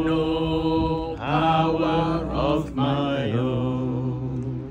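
A man singing a slow worship chorus without accompaniment, in three phrases of long held notes, breaking off near the end.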